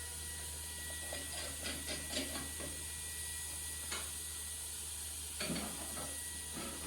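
Scattered light taps and knocks of metal car-hoist parts being handled and fitted, over a steady hiss and low hum.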